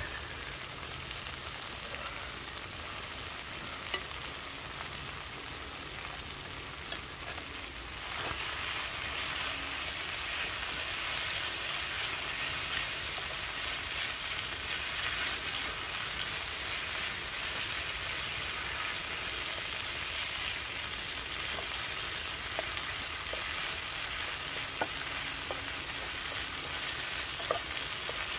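Kimchi and rice sizzling in pork fat in a frying pan while being stirred with a wooden spatula, with occasional taps of the spatula against the pan. The sizzle grows louder about eight seconds in.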